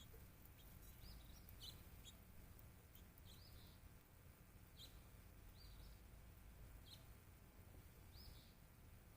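Small birds at a feeder giving faint, short high chirps, one every second or two, with a few sharp ticks between them, over a low steady background rumble.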